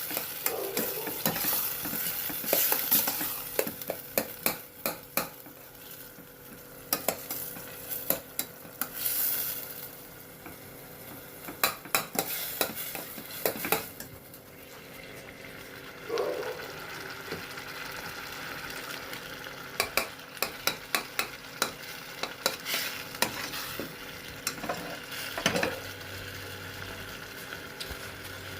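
A spoon scraping and stirring tomato-onion masala as it fries and sizzles in a pan. Sharp clicks of the utensil against the pan come in irregular clusters over a steady sizzle.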